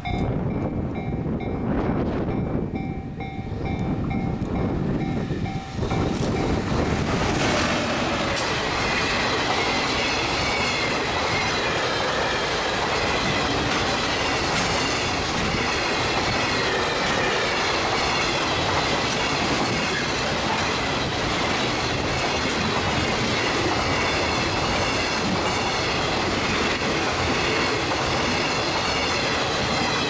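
A level-crossing warning bell rings steadily while an EF210 electric locomotive approaches. About six seconds in, the locomotive and a long freight train of container flat wagons pass close by, with wheels clattering over the rail joints, and this drowns out the bell for the rest of the passage.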